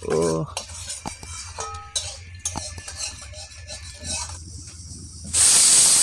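Light knocks and clatter of firewood being handled and pushed into a mud stove, then, about five seconds in, a pressure cooker's whistle goes off with a loud steady hiss of escaping steam, the sign that the cooker has come up to pressure.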